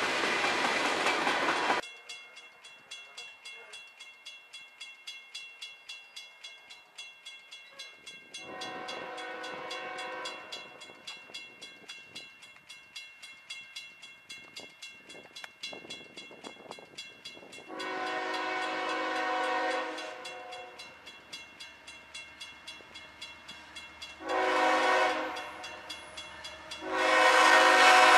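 Freight cars rolling past briefly, then a grade-crossing bell ringing steadily while a CSX ES44AH locomotive blows its horn in the crossing pattern: long, long, short, long. The last long blast, sounded as the locomotive reaches the crossing, is the loudest.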